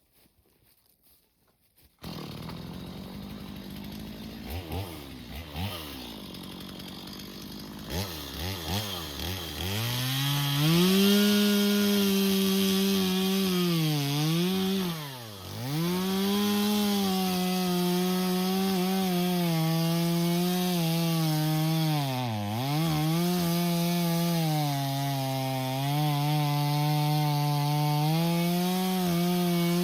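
Stihl MS 250 two-stroke chainsaw cutting into a tree being felled. It comes in suddenly about two seconds in, running at low revs, is revved up around eight seconds, and then holds high revs in the cut. Its pitch sags twice as the chain bogs under load.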